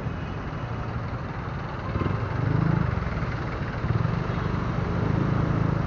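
Motor scooter engine running at low speed in stop-and-go traffic, a steady low hum that swells about two seconds in as the scooter picks up speed.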